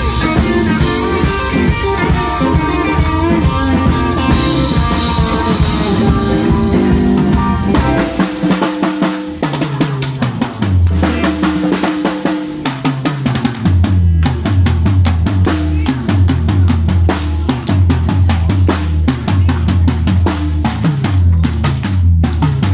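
Live blues band playing: electric guitars, keyboard, bass and drum kit together. About eight seconds in, the guitars and keys drop out and the drum kit carries on, with hard snare and rimshot hits. A deep repeating bass line comes back in under the drums a few seconds later.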